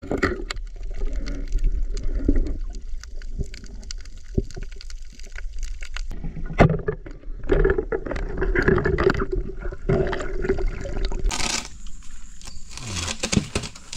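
Underwater sound picked up by a diving camera: muffled water movement and bubbling, with many small clicks and crackles. About eleven and a half seconds in it breaks off with a short burst of noise as the sound changes to open air.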